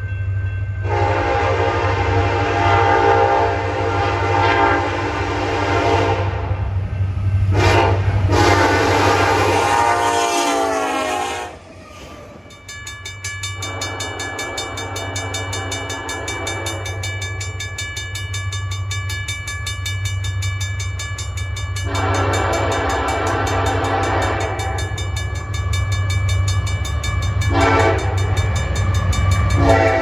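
Nathan Airchime K5LLA five-chime diesel locomotive horn sounding long blasts with a short one between, the grade-crossing signal, over a low locomotive rumble; on one passing its chord drops in pitch as the locomotive goes by. In the later part a railroad crossing bell rings steadily under the horn.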